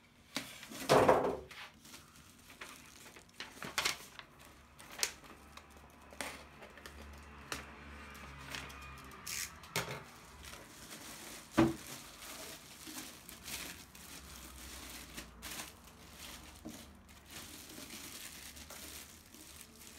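Plastic packaging crinkling and rustling as it is handled, with scattered knocks and clicks. The loudest bursts come about a second in and about halfway through.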